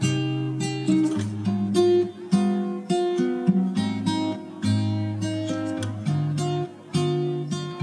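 Background music: acoustic guitar playing picked notes, about two a second.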